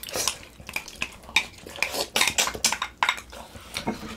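Irregular clinks and knocks of eating utensils and pork bones against dishes as the eaten bones are picked over.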